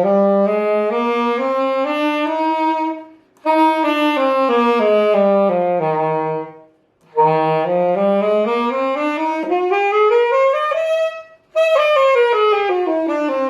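Saxophone playing a major scale (do to do) up one octave and back down, note by note, twice, with a short breath between the runs.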